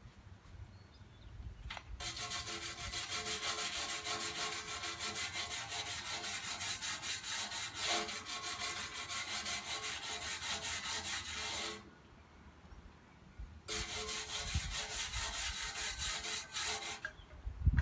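Electric welding arc crackling in two runs, a long bead of about ten seconds and then a shorter one of about three seconds, while a lawn roller is welded.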